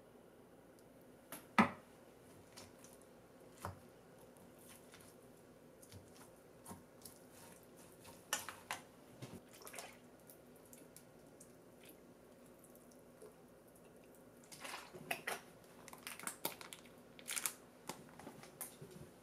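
Quiet food-preparation handling at a steel bowl: a sharp click about a second and a half in, then scattered light clicks, knocks and wet squishes as soup base and grated ginger go in over canned mackerel and vegetables, busiest a little before halfway and again near the end.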